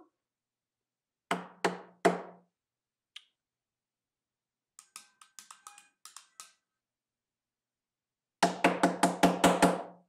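Knuckles knocking on an apartment front door: three knocks about a second in, then a fast run of about eight knocks near the end. In between, a faint string of small clicks as the doorbell button beside the door is pressed.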